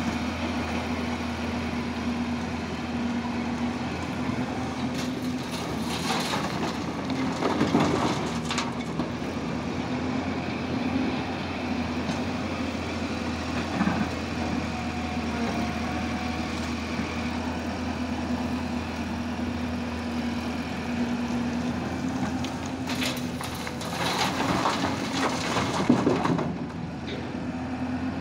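Hyundai crawler excavator's diesel engine running steadily. It swells into louder, rougher spells twice, around a quarter of the way in and again near the end, as the bucket digs and dumps earth and rock into a dump truck's bed.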